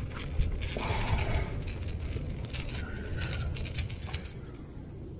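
Irregular clusters of small clicks and rattles from handling a spinning reel and a hooked topwater lure while a white bass is unhooked, over a low rumble; the clicking dies away near the end.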